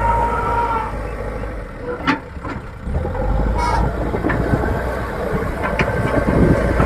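Backhoe loader's diesel engine running steadily under load, with a few sharp knocks from the machine along the way.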